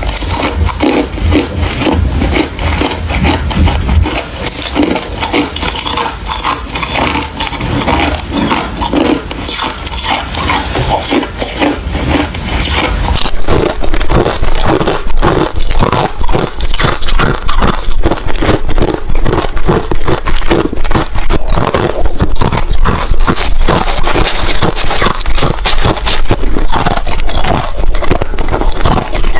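Close-up chewing of something crunchy: rapid sharp crunches and crackles one after another, louder from about halfway through.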